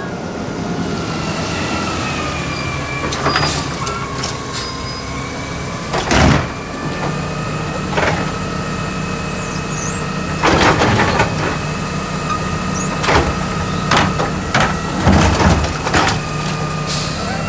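Garbage truck running, with a steady low engine sound under a high steady whine, broken by a string of sharp metallic bangs and clanks every second or so.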